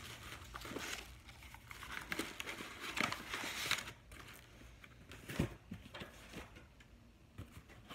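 Tissue paper and packaging rustling and crinkling as they are handled, with a few light clicks and one soft thump about five and a half seconds in.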